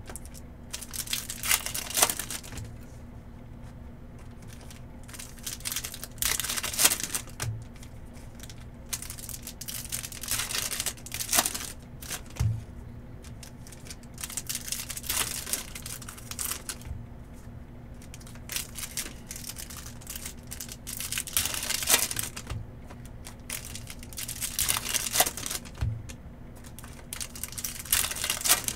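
2023 Topps Cosmic Chrome baseball card packs being torn open, their foil wrappers crinkling in short bursts every few seconds.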